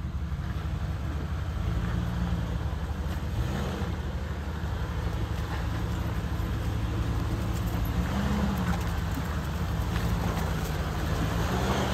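Jeep Cherokee XJ engine running at low revs as it crawls over a rutted trail, its pitch rising slightly a couple of times.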